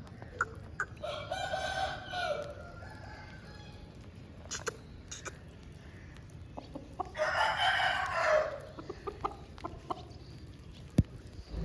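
Aseel rooster crowing twice, each crow about a second and a half long, the second about six seconds after the first. A few short sharp clicks fall between and around the crows.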